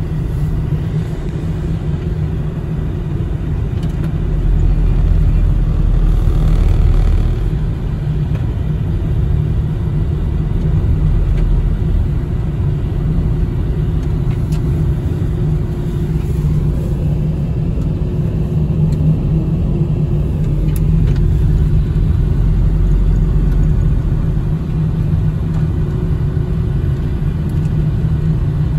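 A car driving along a snowy road, heard from inside the cabin: a steady low rumble of tyres and engine.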